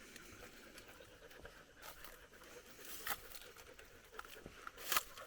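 Faint scattered clicks and light rustling, with sharper clicks about three seconds and five seconds in.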